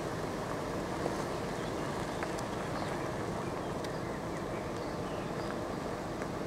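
Steady low rumble and hiss of an idling vehicle, with a few faint ticks.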